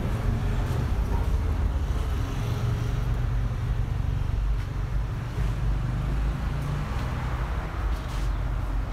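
A car engine running steadily with a low hum.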